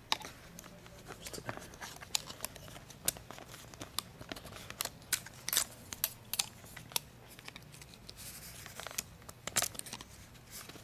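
Irregular sharp metal clicks and small scrapes from a SOG Power Duo folding multi-tool being handled while its stiff arc actuator release is pressed to fold the tools back in.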